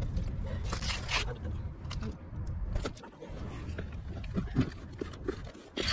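Rustling and scraping from handling fishing gear, a rope and a plastic pouch, over a low rumble. Two louder rustling bursts come about a second in and at the end, with small clicks between.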